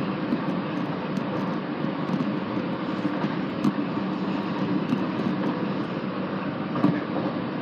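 Steady rumble and hum of a moving passenger train, heard from inside the carriage as it runs along the track. A couple of sharp knocks stand out, one about halfway through and another near the end.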